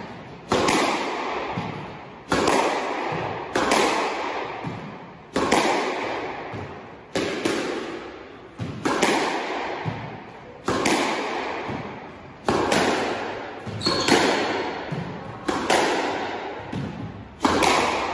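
Solo squash rally of backhand straight drives: the racket strikes the ball and the ball hits the front wall with a sharp crack about every one and a half to two seconds. Each hit rings out in the echo of the enclosed court.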